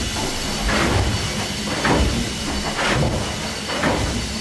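Harvey & Co. double-acting steam beam winding engine running, a steady low rumble with a rhythmic surge of sound about once a second as the engine works through its strokes.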